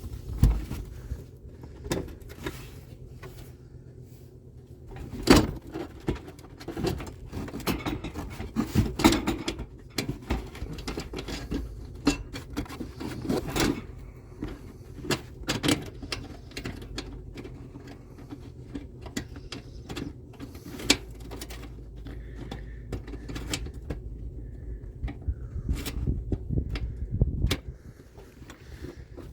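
Scattered clicks, knocks and small rattles of screws and a plastic underbody cover being handled and fitted by hand beneath the oil pan, with a few sharper knocks among them.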